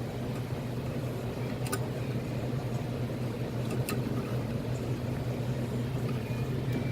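Steady low machinery hum, with two light clicks as plastic shake-machine parts are handled and fitted, about two seconds apart.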